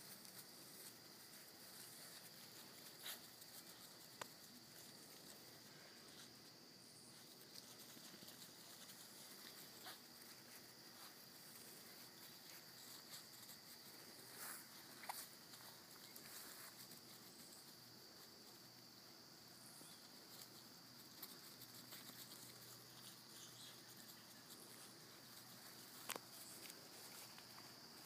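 Near silence. A faint, steady, high-pitched chorus of crickets runs through it, with a few soft scattered clicks and rustles.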